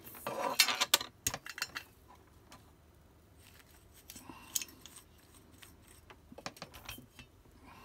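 Handling noise of a brass-wool soldering-tip cleaner in its metal holder: clicks, clatter and scratchy metallic rattling as it is picked up and the soldering iron's tip is jabbed into the brass wool, in three short spells.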